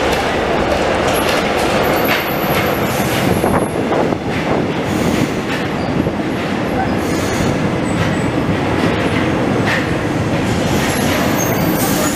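Paris Métro train running past at close range, a loud steady rumble of wheels on rails with high-pitched wheel squeal in the first few seconds and again near the end.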